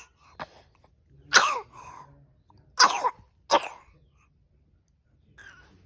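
Young child coughing, three loud coughs between about one and four seconds in, some trailing off into a falling voiced tail, with a faint cough before them. The mother blames the cough on fumes from an electric mosquito repellent.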